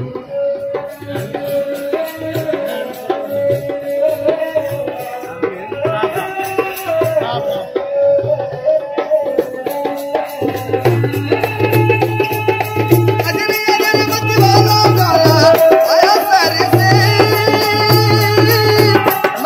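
Rajasthani folk music: a ravanhatha, a bowed folk fiddle, plays a sustained, wavering melody. About ten seconds in, a dholak barrel drum joins with a steady, strongly beaten rhythm.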